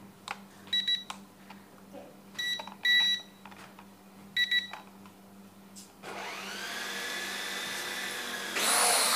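Small foldable toy quadcopter drone (P12 Pro): a few short electronic beeps, then about six seconds in its propeller motors spin up with a rising whine into a steady whirr, which gets louder near the end as it throttles up to lift off. The drone is running normally again after crashing into a wall.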